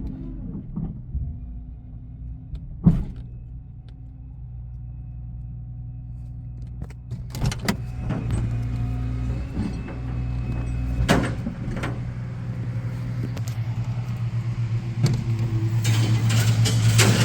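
A vehicle's engine running steadily, with a few sharp clicks and knocks over it, getting louder toward the end.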